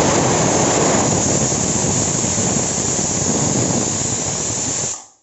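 Stovetop pressure cooker whistling: steam hisses loudly out of the weight valve, a sign that the cooker has come up to pressure, and it stops abruptly about five seconds in.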